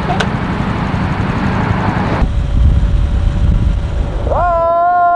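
Small motorcycle running with wind noise on the microphone; about two seconds in the sound cuts to a louder, lower road-and-wind rumble from riding alongside. Near the end a pitched note slides up and is held for about a second and a half as music comes in.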